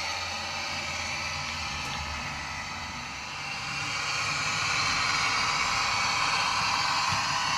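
DCC sound decoder in a Bachmann Class 55 Deltic model locomotive playing its recorded Napier Deltic diesel engine sound through the model's small speaker. The engine sound grows louder about four seconds in and then holds steady.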